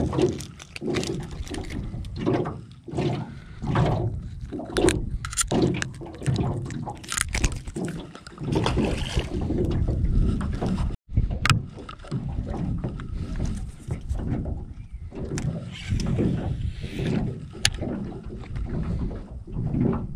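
Small waves slapping against the hull of an aluminium jon boat, with wind buffeting the microphone in uneven surges and scattered light knocks and clicks.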